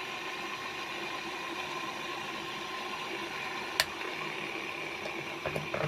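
Toofan ceiling fan running steadily on test after its rattling fault has been repaired, a smooth whir with no repeating knock, and one sharp click about four seconds in.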